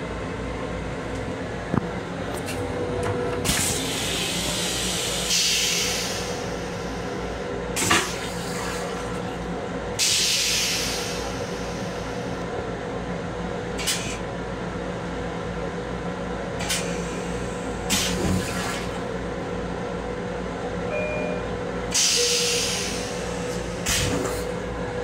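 Restroom toilet of a Long Island Rail Road M7 railcar flushing: several hissing spurts of rinse water into the stainless steel bowl, with a few sharp clicks, over the steady running noise of the train.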